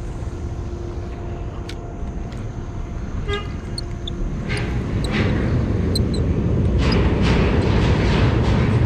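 A steady, low horn-like tone holds for the first few seconds. After that, rough wind noise on the microphone and sharp clicks from handling the spinning rod and reel grow louder.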